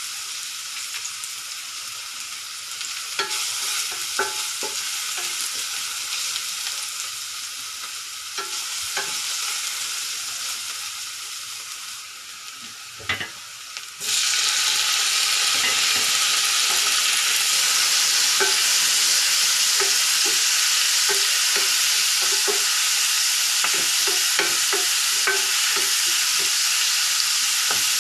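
Ground meat sizzling in a frying pan while being stirred, with scattered light taps and scrapes of the utensil against the pan. About halfway through, the sizzle suddenly gets much louder and stays that way.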